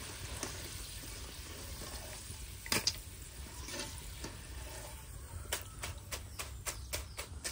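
Potato fries deep-frying in hot oil on their second fry: a steady sizzle, with a single sharp knock about three seconds in and a quick run of clicks in the last two seconds, as of a utensil working in the pan.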